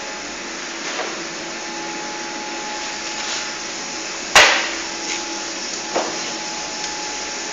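Olive mill machinery running with a steady hum, with a few knocks and one loud sharp bang a little past halfway.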